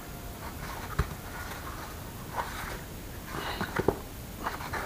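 Orange plastic pit bike front fender with a plastic-welded repair, rubbed and flexed by hand. There is a sharp knock about a second in and a cluster of clicks and creaks near the end.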